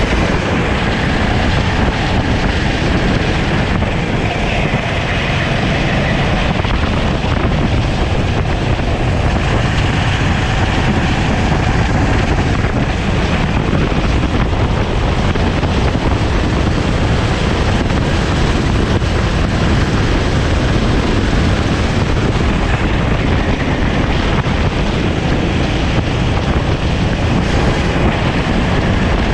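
A Sodi kart's engine running hard at racing speed, heard onboard, its pitch shifting a little through the laps, over steady wind noise on the camera microphone.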